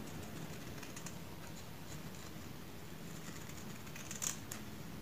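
Small scissors snipping along the edge of a satin ribbon: faint, crisp little cuts, with the two sharpest snips close together about four seconds in.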